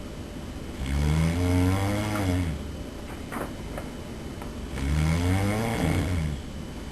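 A man snoring loudly in his sleep: two long snores about four seconds apart, each rising then falling in pitch, with quieter breathing between.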